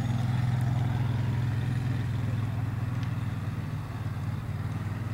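A steady low mechanical hum, even and unbroken, like an engine or motor running at idle.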